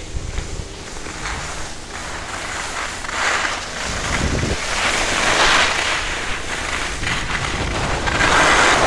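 Wind rushing over the microphone of a camera carried by a skier going downhill, with skis hissing and scraping over packed snow. The hiss swells louder about three seconds in, again midway, and near the end, as turns are carved.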